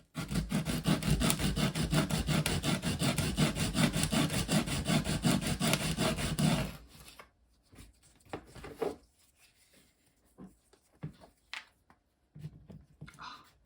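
The rotation selector of a Makita DTD152 impact driver rubbed back and forth on sandpaper by hand, in quick even strokes, about six a second. The sanding stops about seven seconds in and is followed by a few light clicks. The part is being sanded down because it sticks and drags in the housing.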